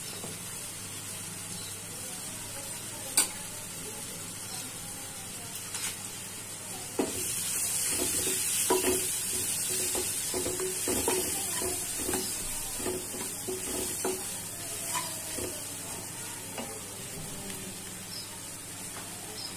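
Sliced onions and spice powders sizzling in hot oil in a non-stick frying pan, with a single sharp click about three seconds in. From about seven seconds in, a wooden spatula stirs them for several seconds, scraping and knocking against the pan, and the sizzle grows louder while it does.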